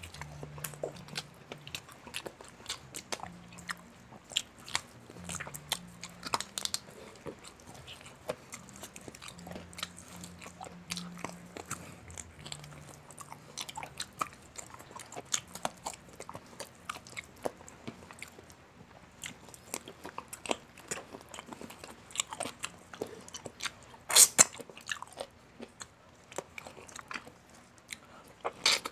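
Close-up mukbang eating sounds: a person biting and chewing crispy fried chicken and forkfuls of rice and spaghetti, with many short wet mouth clicks and crunches. One much louder sharp crunch comes about 24 seconds in.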